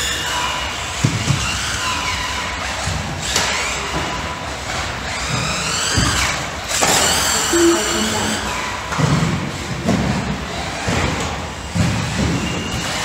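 Electric RC buggy's brushless motor whining, rising and falling in pitch as the throttle is worked around the track, with a few sharp knocks from the car hitting jumps and track boards.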